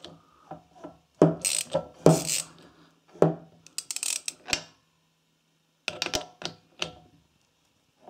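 Socket ratchet wrench clicking in several short bursts, with pauses between them, as it turns a four-stroke motorcycle engine's crankshaft over by hand against compression to find top dead centre.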